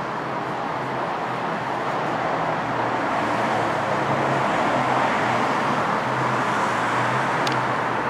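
Steady street traffic noise, a continuous hiss of passing vehicles that grows slightly louder, with a short click near the end.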